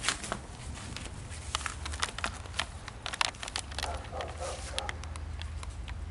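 Footsteps through grass and handling of a hand-held phone: irregular clicks and rustles, with a low wind rumble on the microphone.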